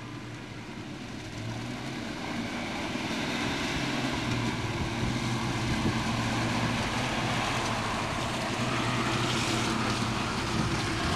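Land Rover 101 Forward Control's V8 engine running as the truck drives along a muddy track toward the camera and past it, growing louder over the first four seconds or so and then staying steady.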